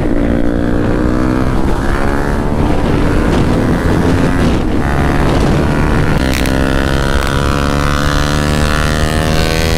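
Bajaj Pulsar 200 motorcycles' single-cylinder engines running hard at speed, with wind rushing over the microphone. The engine note sinks slowly, breaks off about five seconds in, then picks up and sinks again.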